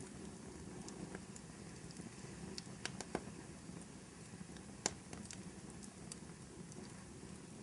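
Wood fire crackling in a fireplace: a steady low rumble with scattered, irregular pops and snaps, the sharpest one just before the five-second mark.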